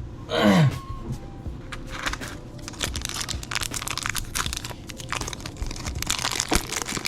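Foil booster-pack wrappers crinkling and tearing as trading-card packs are opened, in dense rapid crackles from about two and a half seconds in. About half a second in, a short voice sound falls sharply in pitch and is the loudest thing.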